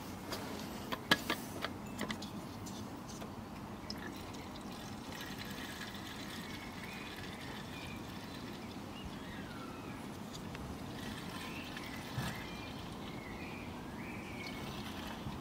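Cold water poured from a graduated plastic jug into the brass boiler of a Mamod MM2 model steam engine through its filler, a steady trickle. There are a few clicks in the first two seconds.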